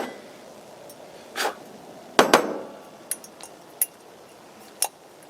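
Camp cookware and gear being handled: a few knocks and clinks, the loudest pair about two seconds in, with a brief ring after them and lighter ticks later.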